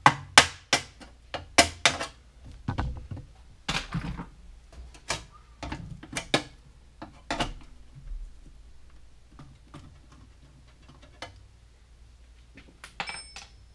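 Sharp metal taps and clinks on a steel electrical panel enclosure as a knockout is being worked out for a cable connector. The taps come in a quick irregular run over the first several seconds, then only now and then.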